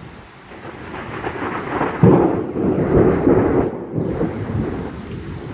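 A peal of thunder: a rumble swells, breaks into a sudden loud crack about two seconds in, rolls on unevenly for a couple of seconds and then fades.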